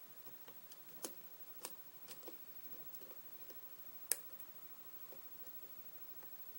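Scattered small metallic clicks from a six-pin tumbler lock being single-pin picked with a hook pick and tension wrench: pins, including serrated spools, clicking as they are set under tension. The loudest click comes a little past halfway.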